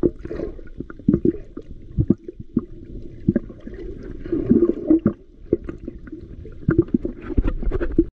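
Muffled water sound heard through a camera held underwater: sloshing and gurgling with irregular knocks and thumps, cutting off suddenly near the end.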